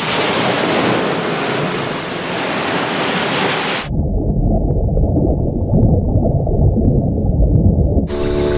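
Sea surf washing steadily over black lava rock. About four seconds in it cuts abruptly to a muffled underwater sound, a deep dull wash with faint scattered clicks.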